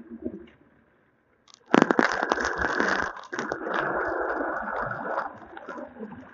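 Crackling wind noise buffeting a handheld phone's microphone while travelling at speed, cutting in suddenly after about a second of near silence.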